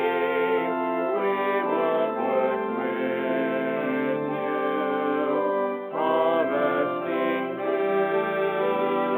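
Hymn music for worship: held, brass-like chords with a singing voice over them, the chords changing every second or so.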